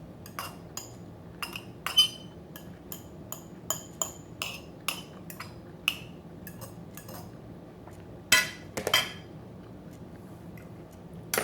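Metal cutlery clinking and tapping against a dinner plate during a meal, many light irregular clicks with a short ring, a louder run of scrapes about eight seconds in.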